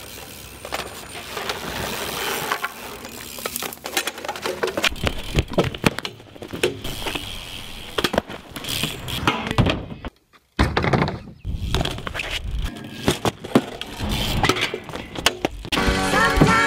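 BMX bike and rider hitting hard ground: a run of sharp knocks and clatters as the metal frame, pedals and wheels bang and scrape on concrete, with a brief drop-out about ten seconds in. Music comes in near the end.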